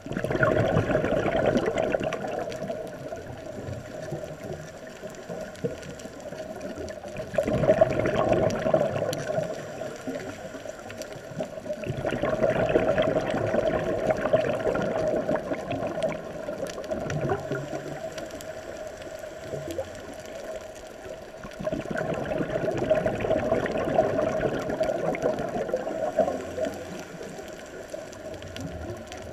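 Underwater: a scuba diver's regulator exhaust bubbles, gurgling in four swells of a few seconds each, with a quieter steady water noise between them.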